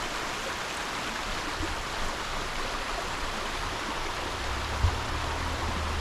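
Small waterfall's steady rushing of falling water. About four and a half seconds in a low rumble joins it, with one brief thump just before the end.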